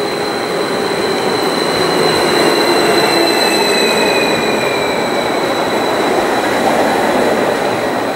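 Serbian Railways Stadler FLIRT electric multiple unit rolling slowly into the platform, its steady running noise carrying a high, steady squeal and a whine that falls in pitch as the train slows.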